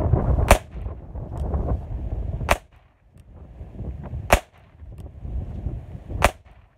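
Four shots from an Imperial Metals .22 Short pocket revolver, sharp small-calibre pops about two seconds apart.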